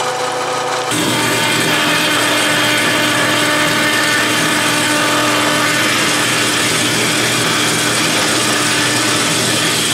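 A milling machine's end mill cutting into a metal chuck body for about a second, then a vertical bandsaw running and cutting through a flat metal disc from a chuck, a steady grinding noise.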